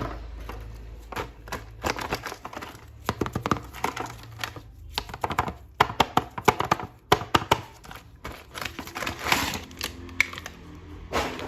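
Plastic action figure and its packaging being handled: a quick run of sharp clicks and taps with some crinkling, as plastic parts knock and snap together.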